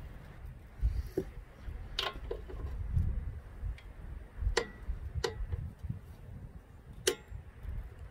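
Ratcheting torque wrench on a sway bar link nut, four sharp metallic clicks a second or more apart as the nut is tightened to 59 ft-lb.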